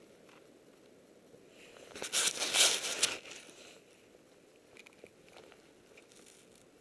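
Crunching and rustling of deep snow close to the camera as someone wades through it, with one loud crackly burst about two seconds in lasting about a second, then a few faint scuffs.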